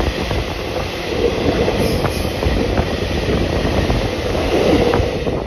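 Steady rushing rumble and clatter of a freight train's open-top gondola wagons passing close alongside, heard from a moving passenger train's open window, with scattered sharp wheel clicks.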